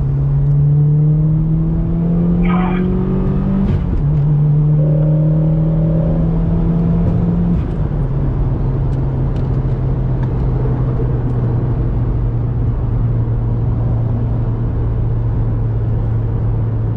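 Subaru WRX's turbocharged flat-four with a Perrin cat-back exhaust, heard from inside the cabin, pulling up through the gears. Revs climb and drop at upshifts about 4 and 7.5 seconds in, then hold steady at cruise.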